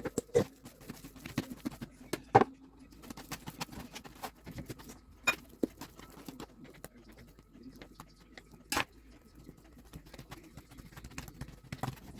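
Kitchen handling noises: scattered light taps and clicks at an uneven pace, with a sharper knock about two seconds in and another near nine seconds in.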